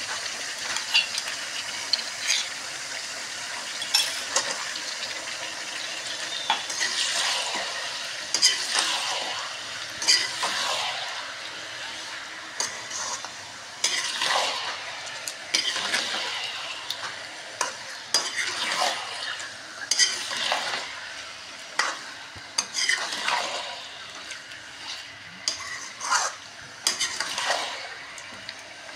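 Beef heart and kidney pieces frying in oil in a metal kadhai, with a steady sizzle, while a steel ladle stirs and scrapes them, giving irregular scrapes and clinks against the pan. This is the bhuna stage, browning the meat with salt and garlic-ginger paste.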